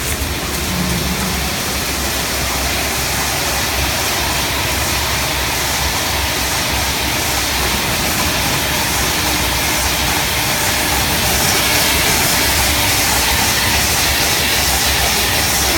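Double-shaft automatic rewinding machine running with a steady, even whirring hiss that grows slightly louder over the first dozen seconds.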